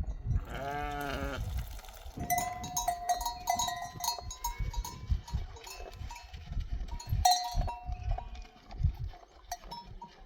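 A single bleat from the flock, followed by small livestock neck bells clinking and ringing irregularly as the animals move, with low thuds underneath.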